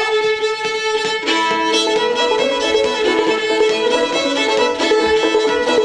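Old-time fiddle tune on violin, the bow holding a steady note under the melody; lower notes join beneath it about a second in.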